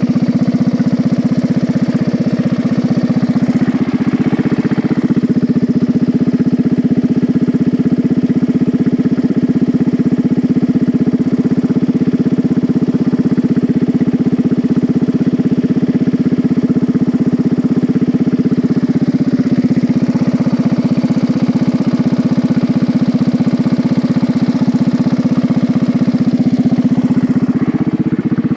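Riding-mower engine of a home-built race mower running steadily while being driven, a loud constant drone with small shifts in engine speed a few seconds in and near the end.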